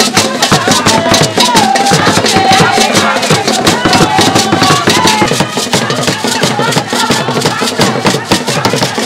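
Ewe Gahu music: fast, dense drumming with gourd rattles shaking along, and group singing over it.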